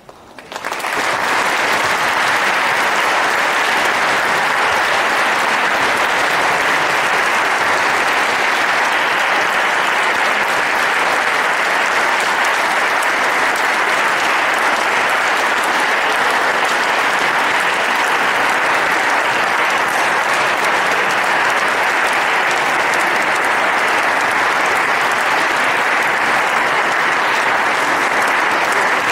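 Audience applauding, breaking out suddenly about half a second in and keeping up at a steady level.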